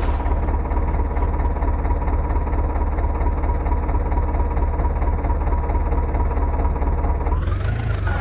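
Diesel engine running steadily, with a steady high tone over it. Near the end a rising-and-falling siren-like glide comes in.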